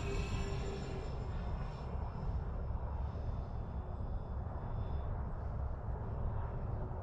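Whine of a remote-control B-24 Liberator model's four brushless electric motors, sliding down in pitch and fading away over the first few seconds as the plane flies off, over a steady low rumble from wind on the microphone.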